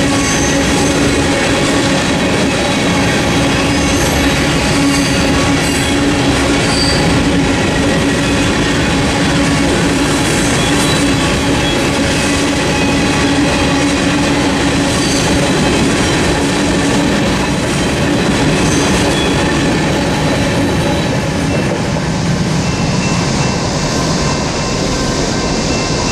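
Union Pacific freight train's covered hopper cars rolling past over a level crossing: a loud, steady rumble and rattle of wheels on rail. A few seconds before the end the sound changes as the last cars clear the crossing.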